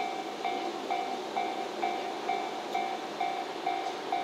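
Japanese level-crossing warning bell ringing a steady electronic ding about twice a second, signalling an approaching train.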